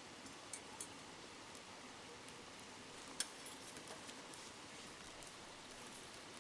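Wood campfire crackling, with a few sharp pops (the loudest about three seconds in) over the steady babble of a nearby river.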